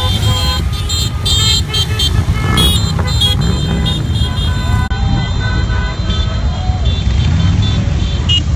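Several motorcycles riding slowly past, their engines running, with short high-pitched toots sounding over them at intervals.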